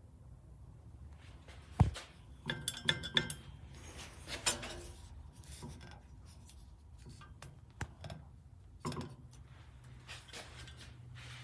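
Scattered metallic clinks and knocks, a cluster of them with a short ring, over a low steady background hum.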